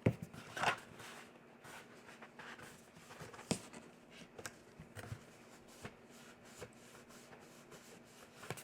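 Hands handling and pressing cardstock paper: light rustling, a brief rub about half a second in, and scattered small taps and ticks.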